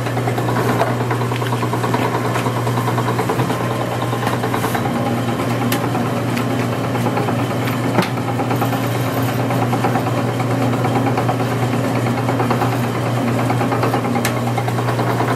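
Electric dough sheeter running steadily, its motor humming and its rollers turning as a sheet of noodle dough is fed through, with a few sharp ticks, the loudest about eight seconds in.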